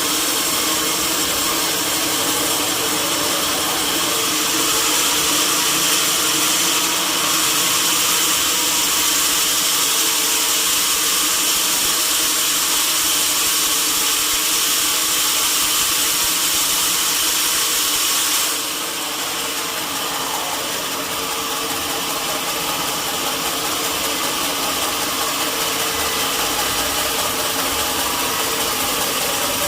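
Sawmill saw and its machinery running steadily through a log, with a steady whine over the noise; the sound eases a little about 18 seconds in.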